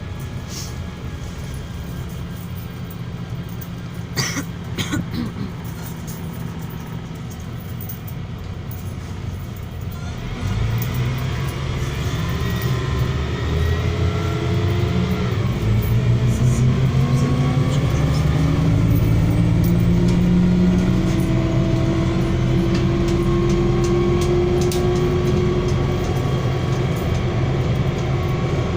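MAZ-103 city bus diesel engine running at a steady low idle, with a couple of sharp clacks about four seconds in; about ten seconds in the bus pulls away and the engine note rises as it accelerates, then holds steady at speed.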